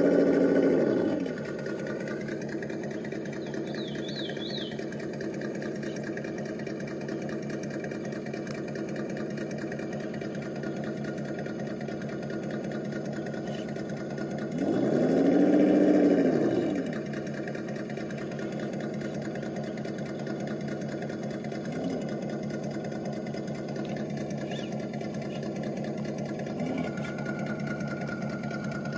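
Electric motor and gear drivetrain of a Traxxas TRX-4 RC crawler whirring under a steady hum, its pitch falling away in the first second, then rising and falling again in one louder swell about fifteen seconds in.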